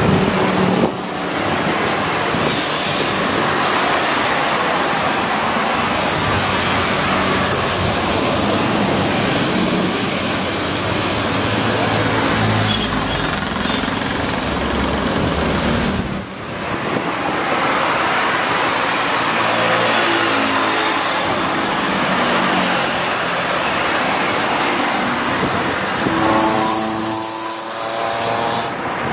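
Road traffic going by, with vehicles passing one after another. There is a brief dip about halfway through, and a pitched tone sounds near the end.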